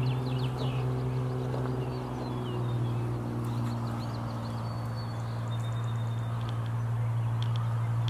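Small birds chirping and whistling over a steady low hum.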